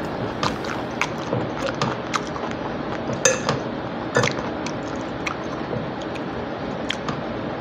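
A metal fork scraping and tapping on a plate while picking through food, with two sharper clinks about three and four seconds in.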